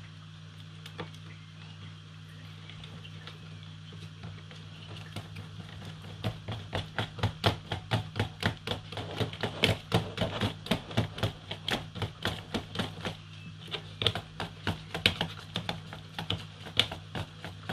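Wire whisk beating batter in a plastic bowl, its wires clicking against the bowl in a quick, even rhythm of about three strokes a second that picks up about five seconds in.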